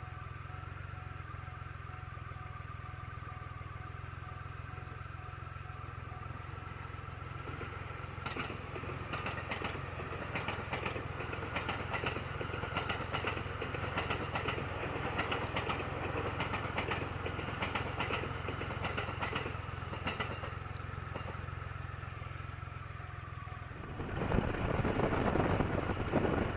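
Triumph Rocket III's three-cylinder motorcycle engine running steadily with a low hum. From about 8 seconds in, irregular sharp taps sound over it, and the sound grows louder and rougher near the end.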